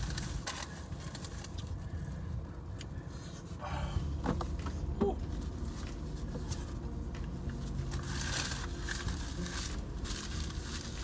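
Steady low hum of a car's air conditioning running inside the cabin. A few small rustles and clicks from a paper food wrapper and chewing come around the middle.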